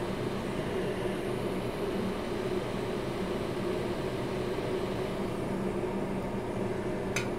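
Hot air rework station blowing steadily over a circuit board, a constant airy rush with a faint hum, reflowing the solder on a Litz wire jumper repair. A sharp click or two near the end.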